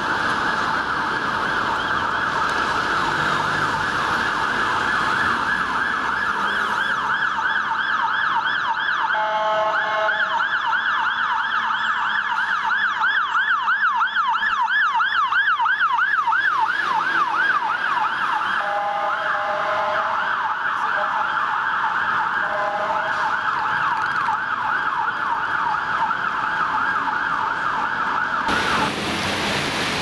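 Siren of a London Fire Brigade Mercedes Econic aerial ladder truck on yelp, sweeping rapidly up and down. Short air-horn blasts cut in about ten seconds in and twice more around twenty seconds in. The siren stops abruptly near the end.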